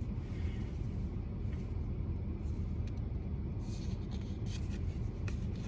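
Pokémon trading cards being slid and flipped in the hands: faint rustles and small ticks, more of them in the second half, over a steady low rumble.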